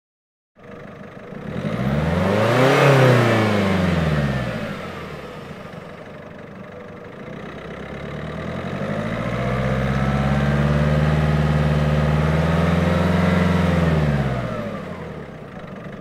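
Car engine revved up and back down twice. A quick rev climbs to a peak and drops back about three seconds in. A longer rev rises, holds high for several seconds, then falls away near the end.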